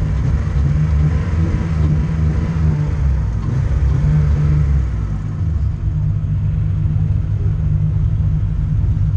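BMW E30 drift car's engine idling, heard from inside the cabin: a steady low rumble.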